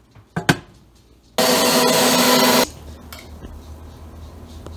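Countertop blender running for a little over a second, pureeing steamed carrots, then cutting off suddenly. Two sharp clicks come about half a second in, before it starts.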